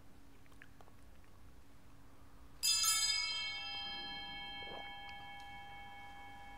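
A single bright metallic strike, like a bell, about two and a half seconds in, its many ringing tones fading slowly over several seconds.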